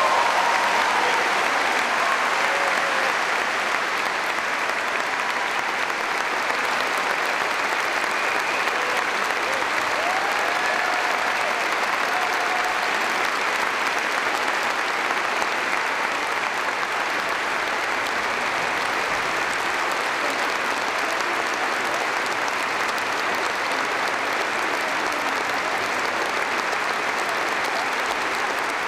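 Large concert-hall audience applauding steadily after an orchestral performance, with a few brief calls heard over the clapping.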